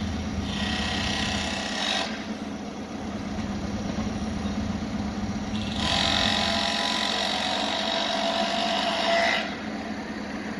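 Construction site machinery: a steady low engine hum, with two spells of higher machine noise, one short and one of about three and a half seconds, that start and stop abruptly.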